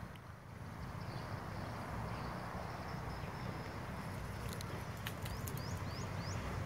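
Open-air ambience with a steady low rumble. About five seconds in, a bird gives four quick rising chirps.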